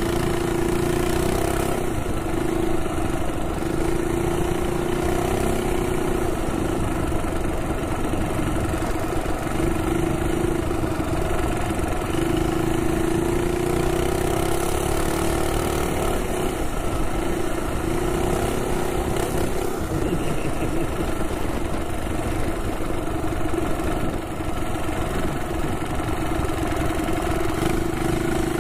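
Minibike's Predator Ghost 212cc single-cylinder four-stroke engine running under way, its steady note wavering slightly as the throttle changes. Wind rushes over the microphone throughout.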